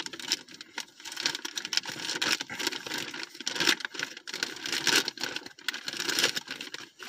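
A shipping package being cut and torn open, its packaging rustling and crinkling unevenly.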